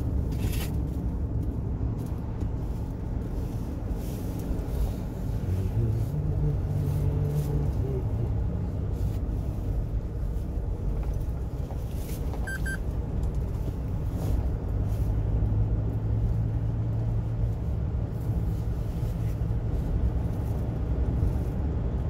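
Truck engine and tyre noise while driving uphill: a steady low rumble, with the engine note standing out for a couple of seconds about six seconds in and again for several seconds from about fourteen seconds. A short high beep sounds about twelve seconds in.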